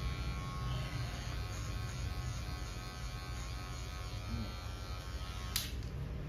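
Electric hair clippers buzzing steadily as they trim the hair at the side of the head. Near the end there is a sharp click, after which the clippers' buzz stops.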